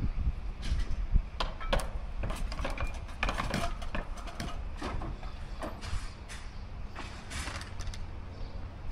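Irregular mechanical clicking and clanking, over the low buffeting of wind on the microphone.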